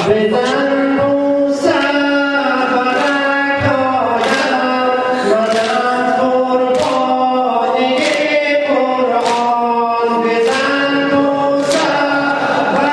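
Shia mourning lament (noha) sung in long held phrases by a lead voice, with the congregation's chest-beating (sineh zani) giving sharp slaps at an even beat about every second and a bit.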